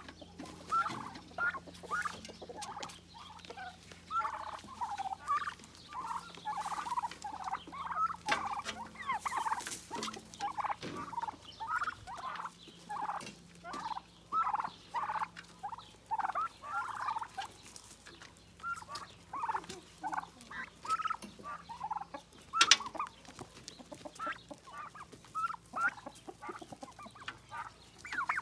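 A flock of domestic turkeys calling, with short calls one after another. A single sharp tap about three-quarters of the way through is the loudest sound.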